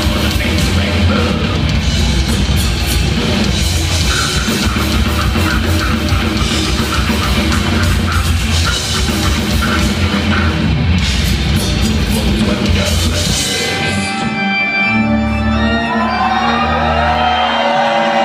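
Symphonic black metal band playing live and loud in a club: distorted guitars, bass and a pounding drum kit. About thirteen seconds in, the heavy guitars and drums stop, leaving held keyboard notes and high gliding cries.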